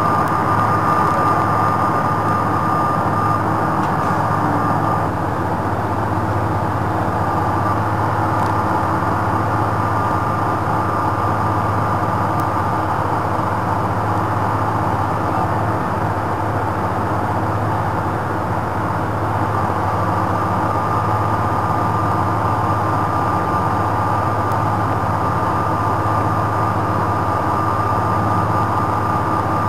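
Steady drone of a drilling rig's machinery as the pipehandler works, with a thin high whine that fades about a few seconds in and comes back about two-thirds of the way through.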